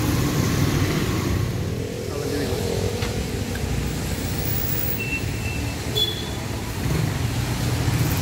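Road traffic passing on a wet road: a steady low rumble of cars and their tyres.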